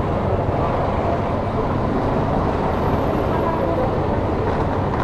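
Steady city street noise of traffic and idling engines, with people's voices in the background.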